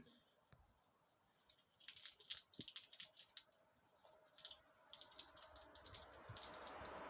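Red squirrel chewing and handling food close by: faint clusters of quick, dry clicks and crackles, with a faint hiss rising near the end.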